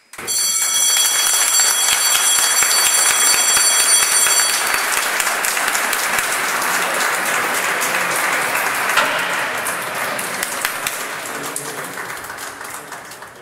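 A crowd applauding, beginning abruptly and fading away near the end. For the first four or so seconds a high, steady bell rings over the clapping and then cuts off: the exchange's opening bell signalling the start of the trading session.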